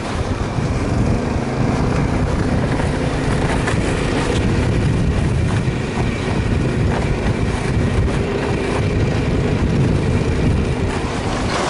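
Engine of a motorized towing unit (motor-dog) running steadily at travelling speed, pulling loaded sleds over the snow, with the constant noise of the ride mixed in.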